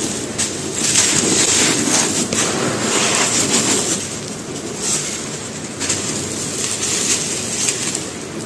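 Dry mud brick crumbling: a continuous gritty crunching with many small crackles.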